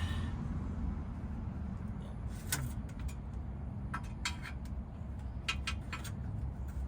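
A handful of sharp metallic clicks and clinks from an oil filter wrench being set and turned on a car's oil filter: one about two and a half seconds in, then a quick cluster a second later. Under them runs a steady low rumble.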